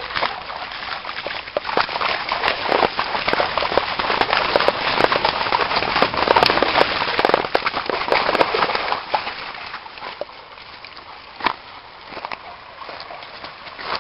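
German Shepherd running and splashing through a shallow rocky creek: loud, dense churning and crackling of water for about nine seconds, then quieter, with a few single splashes or knocks.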